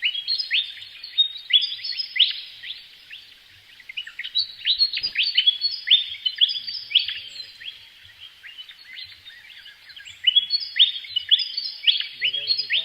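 A flock of small birds chirping together: many short, high, overlapping chirps that each drop in pitch. They come in busy bursts and thin out for a couple of seconds around the middle.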